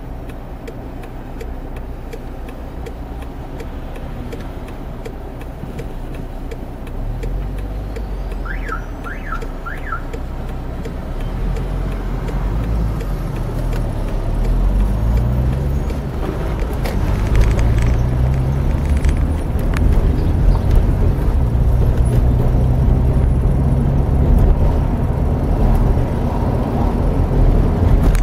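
Car engine pulling away and accelerating, its pitch rising again and again as it works up through the gears. The engine and road noise grow louder as speed builds, heard from inside the car.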